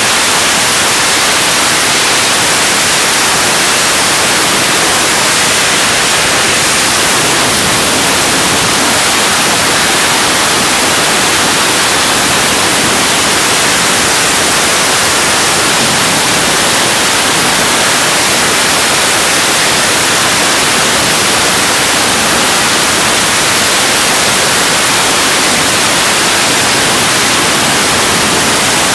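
Freefall wind rushing over the camera's microphone: a loud, steady hiss that does not change.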